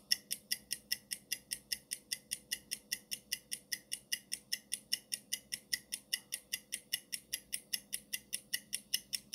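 Countdown timer sound effect: an even, high-pitched clock-like ticking at about four ticks a second.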